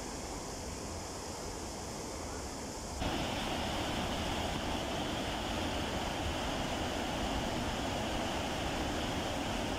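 Low, uneven rumble of wind on the microphone over a gently flowing river, then about three seconds in a sudden cut to the louder, steady rush of river water pouring over a low weir.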